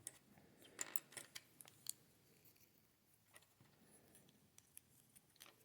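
Faint clicks and ticks of plastic LEGO bricks being handled and pressed together, a quick run of several clicks in the first two seconds, then only a few scattered ones.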